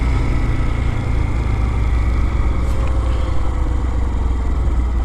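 Lifan KPX250's 250cc single-cylinder four-stroke engine running steadily while the bike is ridden along at moderate road speed, with a low rumble from wind on the microphone.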